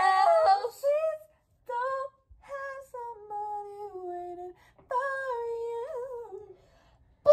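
Young girls singing a pop song unaccompanied, in held, gliding phrases with short pauses between them.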